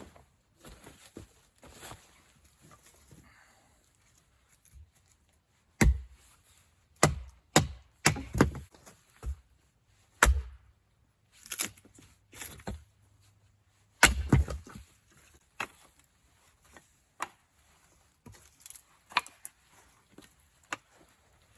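A series of irregular sharp knocks and thuds, starting about six seconds in, with the loudest strikes there and again about fourteen seconds in and quieter taps between.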